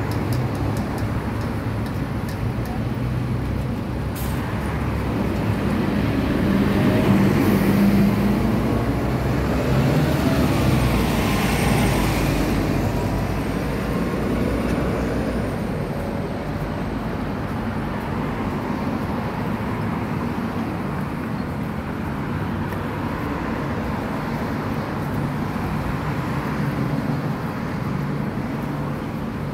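Road traffic at a bus stop, with a Volvo double-decker bus's engine running close by; the rumble swells for several seconds in the first half, then settles to a steady traffic drone.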